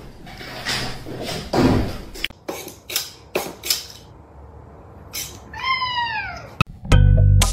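An orange tabby cat gives one long meow that slides down in pitch, after a few short scratchy strokes as a hand works over its fur. Music starts loudly near the end.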